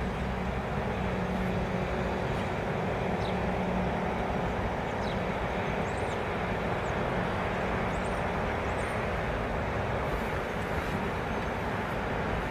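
Steady hum and hiss heard inside a stationary car's cabin, even throughout, with a faint low tone coming and going.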